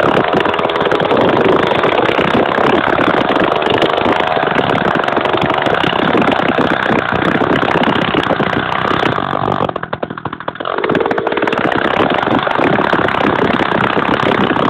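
Two-stroke chainsaw running hard while cutting through a frozen cow carcass, dropping off briefly about two-thirds of the way through before picking up again.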